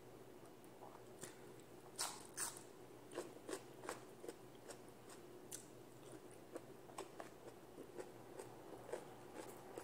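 A person eating close to the microphone: chewing with a run of short, wet mouth clicks, the two loudest about two seconds in. A faint steady hum sits underneath.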